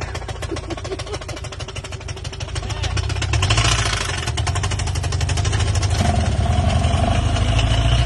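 Subaru BRZ's flat-four engine running with a rapid, regular knocking, which the owner takes for rod knock after a drift. It gets louder about three seconds in and again about six seconds in.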